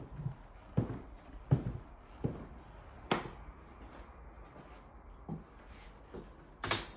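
A series of separate sharp knocks and taps at uneven intervals, about six in all, the strongest near the end.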